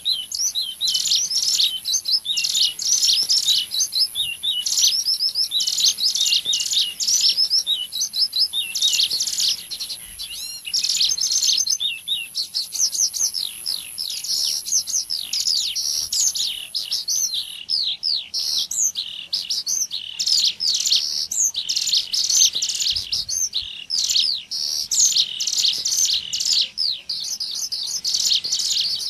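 Ciblek gunung lure calls: a dense stream of rapid, overlapping high chirps and trills. A thin steady high whine runs behind them and stops about two-thirds of the way through.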